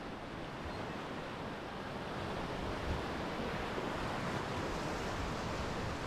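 Whitewater of a river rapid rushing steadily, growing somewhat louder over the first few seconds, with some wind buffeting the microphone.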